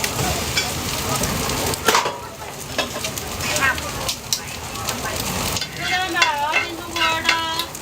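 Food sizzling as it fries, with a spatula scraping and clicking against the pan as it is stirred.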